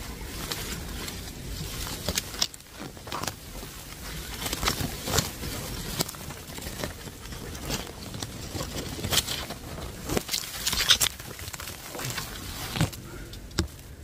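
Leaves and twigs rustling and crackling in irregular bursts with a few sharper snaps, as tree branches are handled to reach a bird's nest.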